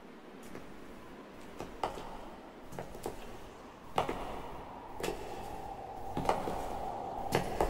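Wooden craft sticks and a wooden clothespin clicking and knocking against a wooden tabletop as they are laid out and handled: about a dozen sharp clicks, the loudest about four seconds in, over a faint steady hum.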